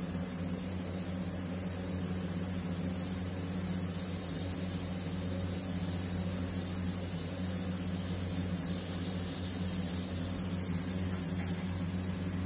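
Steady hiss of compressed air from a gravity-feed airbrush spraying paint, over a constant low motor hum. The hiss thins near the end.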